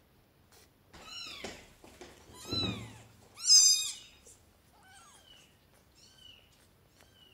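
Newborn kittens meowing: three loud, high-pitched cries about a second apart, each falling in pitch, the third the loudest, followed by several fainter short cries.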